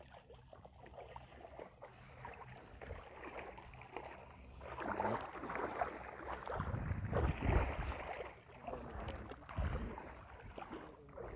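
Water sloshing and splashing in uneven bursts, busiest from about five to eight seconds in, with low rumbles on the microphone.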